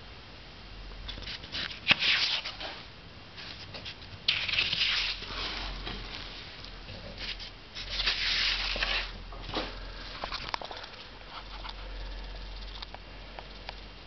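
Rustling in three uneven bursts, with scattered light clicks and ticks that come more often in the second half, over a faint low rumble.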